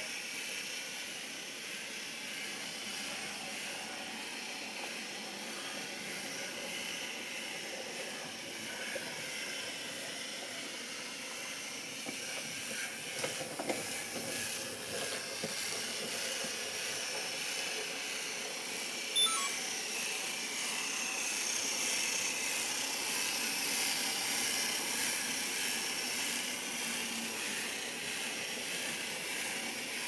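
Steady hiss of room noise, with a few light handling knocks and, about two-thirds of the way through, a short electronic beep from the Sony action camera and its remote as a button is pressed.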